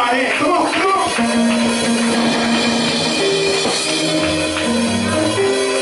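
Church music: long held keyboard chords over a low bass note, with a tambourine shaking along.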